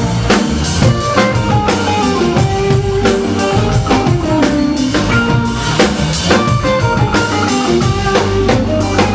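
Live rock band playing, with a drum kit keeping a steady beat under electric guitars and keyboards.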